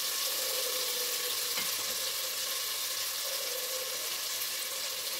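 Tomatoes and whole spices frying in oil in an aluminium pot, a steady sizzle, as the masala is being fried down.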